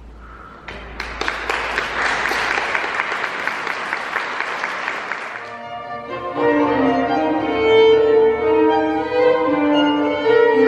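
Audience applauding for about five seconds, stopping suddenly, then a small orchestra begins playing, with bowed strings to the fore.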